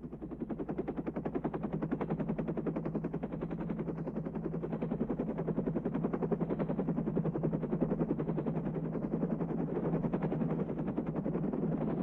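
Helicopter rotor chopping in a rapid, steady pulse over a constant low hum.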